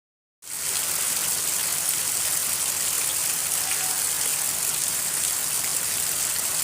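Rain pouring down, a steady even hiss that starts about half a second in.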